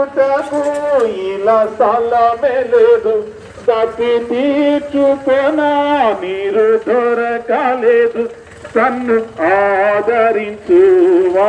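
A man singing a Christian devotional song solo, in long held, wavering notes with no instruments.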